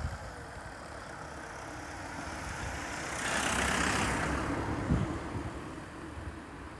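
A road vehicle passing by, its noise swelling to a peak a few seconds in and then fading, over a low steady rumble, with a couple of short low thumps.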